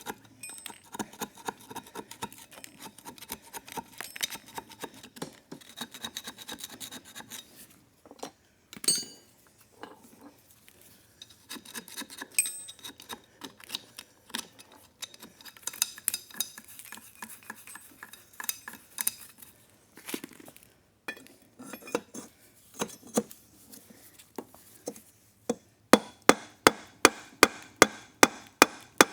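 Metal hand tools scraping and clicking inside a motorcycle engine's clutch housing, digging out packed dirt and gunk. A quick run of regular sharp clicks, about four a second, comes near the end.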